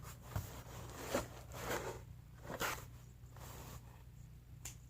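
Cardboard being handled: a few short, soft rustles and scrapes spread through the quiet.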